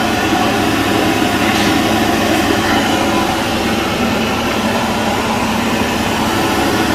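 Steady, loud rush of air from an electric blower running without change, with a faint hum under it.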